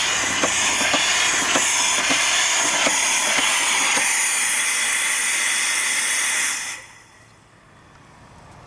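Steam donkey hoist engine running with a loud hiss of escaping steam and a regular knock about twice a second. The hiss stops suddenly about two-thirds of the way through.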